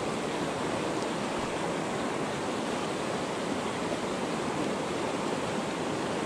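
Steady rush of a fast, rocky river tumbling over boulders in whitewater.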